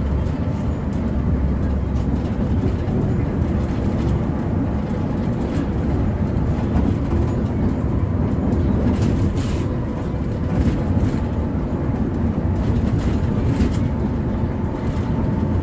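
Steady engine and road rumble of a Hino RK8 coach travelling at speed, heard from inside the cabin, with a faint steady whine above it.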